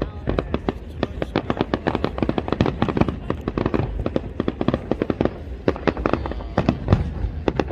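Fireworks display with many shells bursting in quick succession: a dense, unbroken run of sharp cracks and bangs, several a second.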